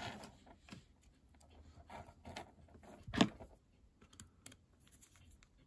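Small plastic clicks and rustling as jumper wires are handled and pushed onto an Arduino Nano screw-terminal carrier board, with one louder click about three seconds in.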